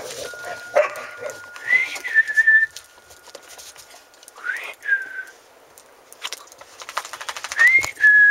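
A person whistling to call dogs: three whistles, each a quick rising note that settles into a held steady note.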